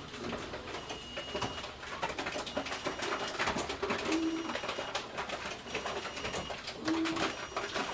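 Grocery store bottle return machine at work: short low hums recur every few seconds, with clicks and rattles between them and faint steady high electronic tones.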